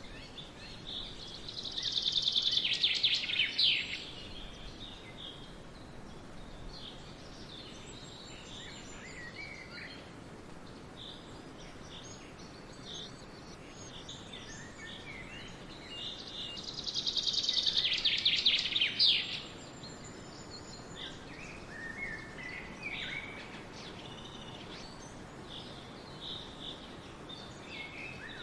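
Forest songbirds singing over a steady background hiss. Twice, about fifteen seconds apart, a loud rapid trill rings out for about two seconds, and softer scattered chirps fill the gaps.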